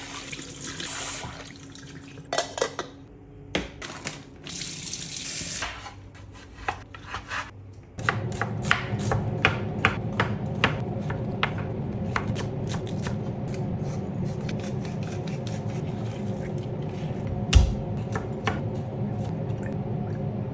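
Kitchen clatter of light knocks and taps, then from about eight seconds in a steady sizzle with crackles and pops, as of meat frying on a hot pan, with one sharper knock near the end.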